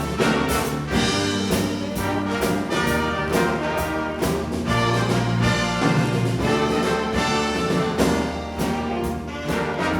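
Youth jazz big band playing a tune, its trumpets, trombones and saxophones together over a steady beat.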